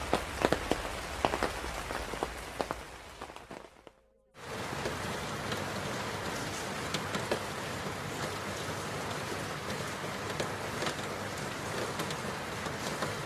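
Rain falling, with distinct drops ticking on a surface, fading out about four seconds in. After a brief gap a steadier, denser rain hiss starts.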